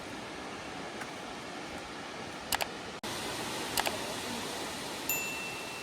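Steady rushing noise of falling water, with sharp double clicks about two and a half seconds in and again near four seconds, and a brief high beep near the end.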